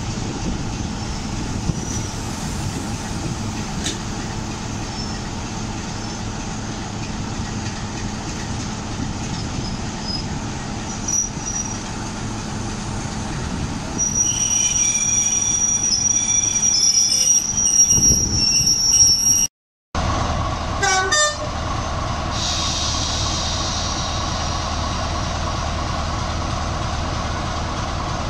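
Train standing at a station platform with a steady low rumble. Later a loud, shrill high-pitched sound lasts about five seconds. After a sudden break, a BR Class 45 'Peak' diesel locomotive's Sulzer twelve-cylinder engine idles with a steady drone.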